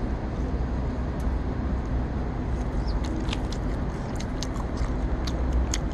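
Crunchy chewing of a crispy breaded sausage on a stick, with short crisp clicks from about halfway through, over a steady low rumble of road traffic.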